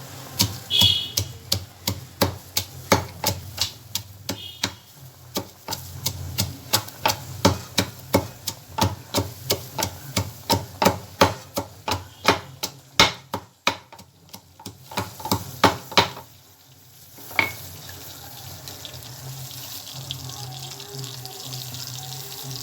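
Thoothuvalai stems and leaves, with garlic, pounded with a pestle in a mortar: steady strikes about two a second, which stop a little over two-thirds of the way through. A steady low hum remains after that.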